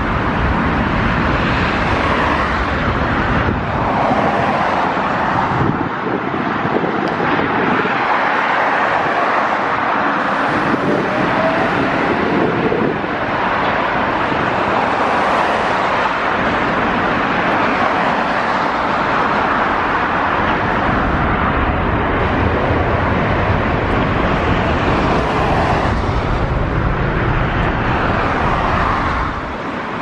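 Boeing 777 twin jet engines at takeoff power during its departure run: a loud, steady jet rumble, with gusty wind buffeting the microphone so the low end swells and drops unevenly.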